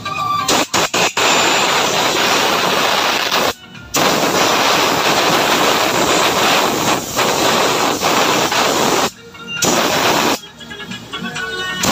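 Loud, steady hissing rush in three long bursts, each starting and stopping abruptly; faint music can be heard in the quieter stretch near the end.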